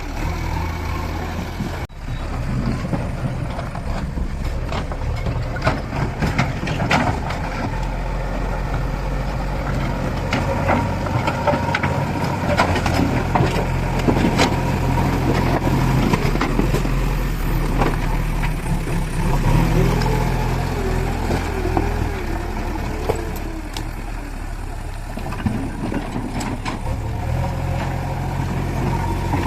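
Diesel engine of a backhoe loader running steadily, its low note stepping up and down several times, with scattered knocks and clanks throughout.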